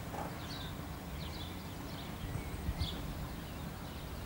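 Birds chirping in short, quick calls over a low, steady rumble from a distant diesel locomotive hauling a log train toward the station.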